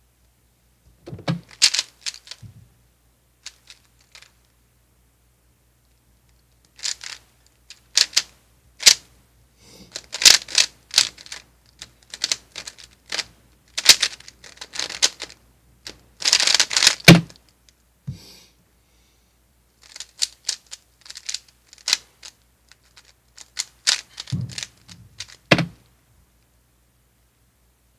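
A 3x3 speed cube being turned fast by hand: its plastic layers clack in rapid runs of clicks, in bursts separated by short pauses.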